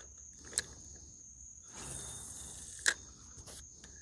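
Steady high-pitched insect drone, broken by two sharp clicks a bit over two seconds apart and a brief rush of noise between them.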